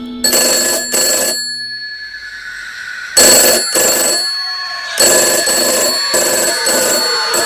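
Old desk telephone's mechanical bell ringing in repeated bursts. The first ring comes just after the start, another about three seconds in, and a third from about five seconds in that carries on.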